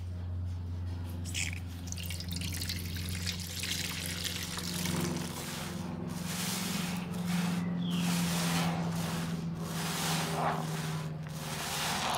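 A foam sponge soaked in pine cleaner and Cif cream cleaner is squeezed and wrung over a steel bowl, over and over: wet squelching, with soapy liquid dripping and trickling back into the bowl. A steady low hum runs underneath.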